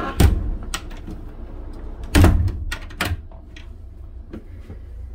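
A handful of sharp knocks and clicks, the loudest near the start, about two seconds in and about three seconds in, over a steady low rumble.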